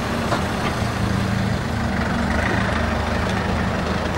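Car engine idling steadily at low revs.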